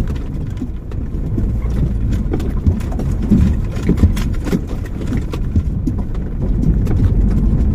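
Wuling car's engine and tyres rumbling low and steady, heard inside the cabin as it creeps over a wet, potholed dirt road, with scattered knocks and rattles as the car jolts, the sharpest around three to four seconds in.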